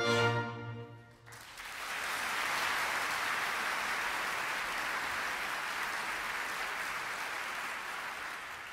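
Music ends about a second in, and an audience then applauds steadily, the applause fading near the end.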